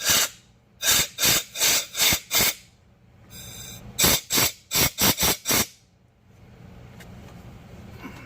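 Compressed-air blow gun fired in quick short blasts, about three a second, into a drilled-out bolt hole in the engine block to clear the metal shavings. A brief high whistle between two runs of blasts, and a faint steady hiss near the end.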